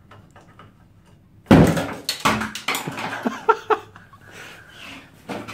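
Piano wire being pulled through the urethane seal of a Nissan S14's bonded rear windscreen, with quiet scraping and then one sudden very loud crack about a second and a half in. A second knock and a run of sharp clicks and rattles follow. The crack is called the loudest thing ever heard, and the glass does not break.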